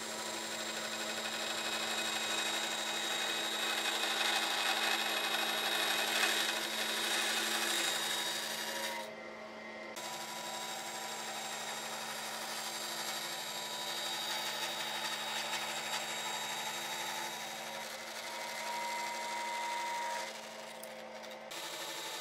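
Band saw running and cutting through a clamped stack of thin wooden strips along a curve: a steady motor hum under the rasping noise of the blade in the wood. The cutting noise drops away briefly twice, about nine seconds in and near the end.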